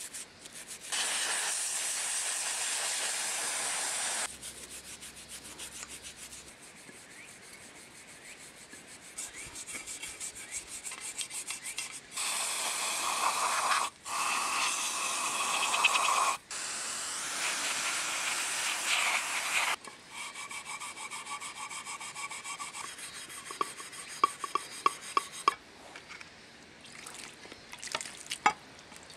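A toothbrush scrubbing grime off the metal parts of an old Hitachi Koki polisher (its motor field coil and aluminium gear housing), in several separate stretches of steady brisk rubbing that start and stop abruptly. Near the end come lighter ticks and knocks as water is poured over the housing to rinse it.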